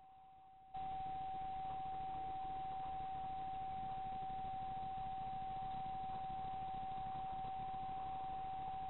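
A steady high-pitched electronic whine over an even hiss, which jumps louder a little under a second in and then holds level.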